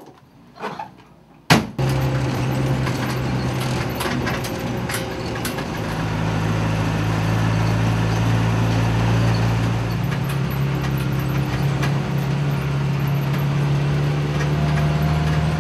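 A sharp bang about a second and a half in, then a van's engine running steadily while it drives, heard from inside the cabin, with frequent rattles and clicks from the body. The engine note shifts about six seconds in.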